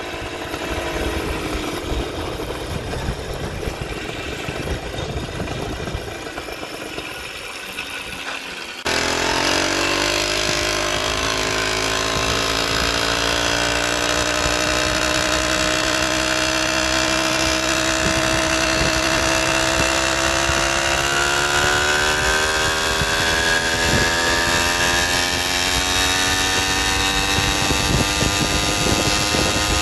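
Small motorized bicycle engine running while riding, with wind noise. About nine seconds in the sound jumps louder and the engine note comes through clearly, then its pitch rises slowly as the bike speeds up.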